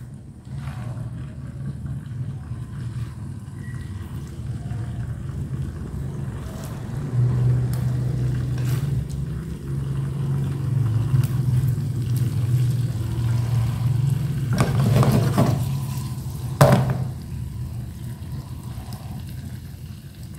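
A low steady drone that swells over the first several seconds and fades near the end. A few sharp clicks and a clatter sound over it, loudest about three-quarters of the way through.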